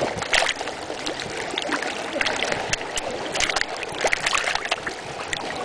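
Seawater splashing and sloshing at the surface, dense with sharp pops and crackles, as a crowd of fish feeds on a banana held in the water.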